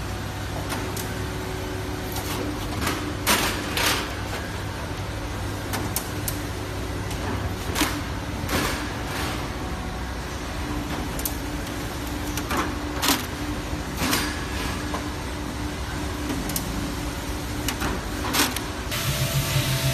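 Steady factory machinery hum, broken now and then by short swishing scrapes as copper-clad laminate sheets are slid and stacked. Near the end a different machine hum takes over.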